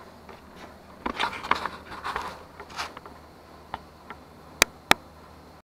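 Handling noise: a flurry of rustling and light knocks as the camera is moved, then two sharp clicks about a third of a second apart near the end.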